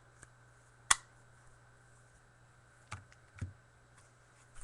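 A single sharp click about a second in, then two softer knocks near the end: small hard objects being handled.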